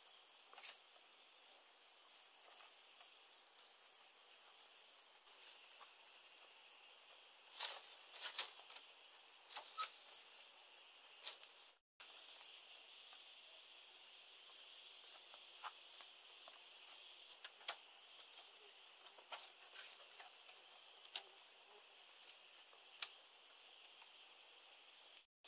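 Steady, faint, high-pitched chorus of insects, with scattered short clicks and knocks from bamboo strips and panels being handled and tied.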